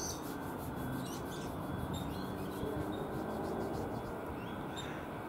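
Quiet railway-platform ambience: a steady low background hum with a few faint, short, high bird chirps.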